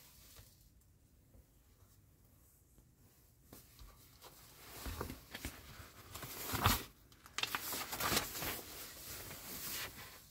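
Glossy magazine paper rustling as the cover is lifted and the pages are turned open, starting faint and growing louder about halfway through, with the loudest crinkle about two thirds of the way in.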